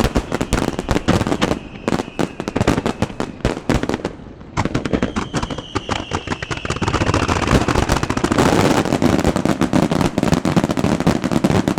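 Fireworks finale: a dense, rapid barrage of bangs and crackles, with a high whistle sliding slowly down in pitch near the start and again about five seconds in. After a brief lull about four seconds in, the barrage thickens and grows louder toward the end.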